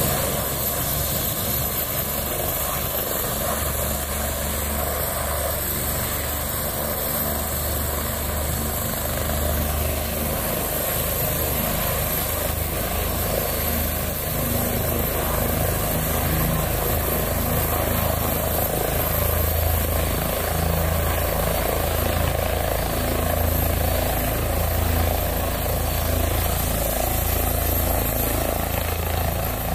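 Turbine helicopter running on the ground with its main rotor turning: a steady low beat of the blades under a thin, steady high whine.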